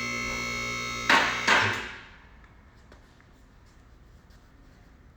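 Background music with held tones and two sharp hits about a second in, cutting off at about two seconds. Faint room tone with light clicks follows.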